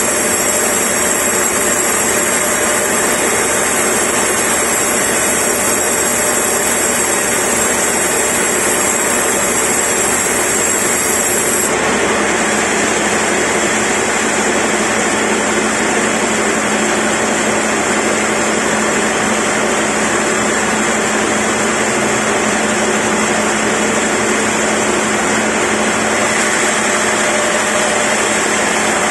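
Large vertical band sawmill running steadily while its blade saws lengthwise through a log on the moving carriage. The tone changes abruptly about twelve seconds in.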